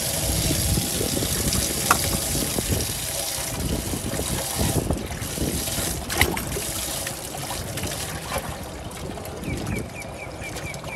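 Water trickling and splashing steadily, with scattered knocks and a quick run of short high chirps near the end.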